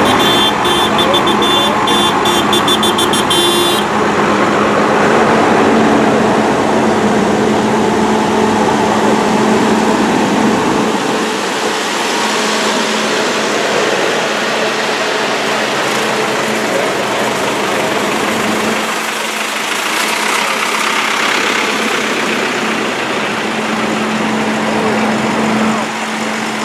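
Diesel engines of large farm tractors running as a procession of them drives slowly past one after another, a steady loud engine hum throughout. A high-pitched pattern sounds over the engines for the first few seconds.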